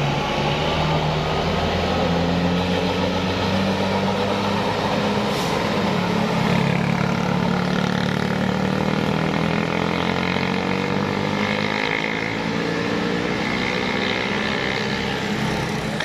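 Diesel engine of a large tour coach running under load as it rounds a sharp bend and pulls away, its pitch slowly shifting. A motorcycle passes close by about halfway through.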